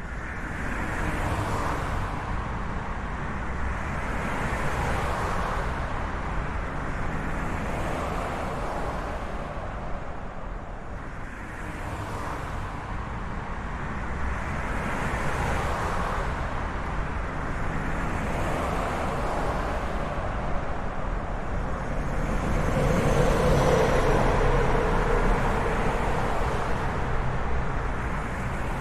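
Road traffic: vehicles passing one after another, the tyre and engine noise swelling and fading every few seconds. About three-quarters of the way through, a louder vehicle passes with a steady engine hum.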